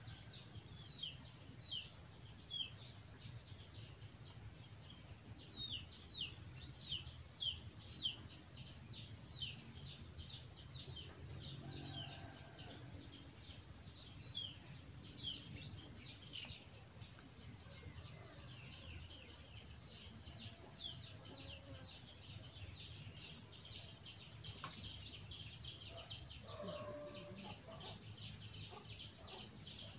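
Outdoor ambience: birds calling in many quick, downward-sliding chirps, most of them in the first half, over a steady high-pitched insect drone.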